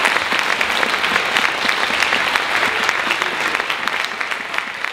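Audience applauding: many hands clapping together, fading toward the end.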